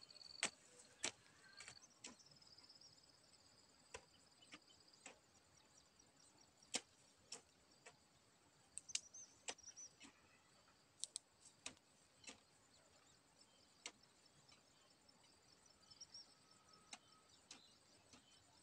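Faint sharp chops of a hand hoe's blade striking the soil, irregular, roughly one every second, as holes are dug. Faint bird chirps are heard a few times.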